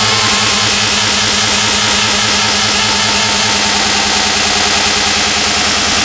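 Loud happy hardcore dance music played live: a fast, even run of drum hits over sustained synth tones.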